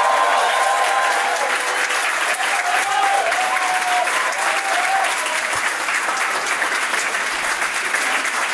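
Sustained applause from a room full of people clapping, with a few voices rising over it in the first half.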